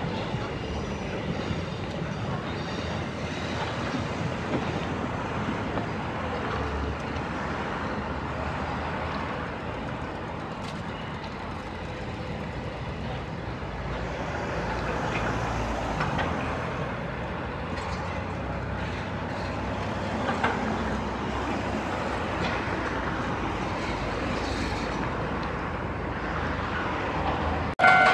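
Steady city traffic noise, an even hum with no distinct events. Right at the end a railway level-crossing bell starts ringing.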